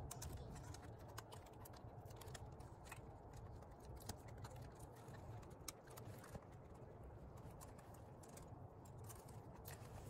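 Faint handling noise: scattered small clicks and rustles as hands stretch rubber bands over a DJI Mini 2 drone in a rubber rain cover, over a low hum.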